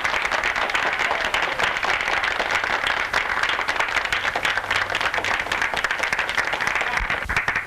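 Crowd applauding: many hands clapping together.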